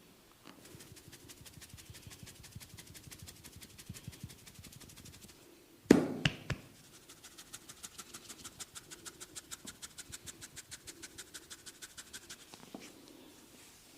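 A barber's hands beating out a fast, even tapping massage on the head and shoulders, with light quick strokes at first and later about five or six a second. About six seconds in there is one loud sharp hit.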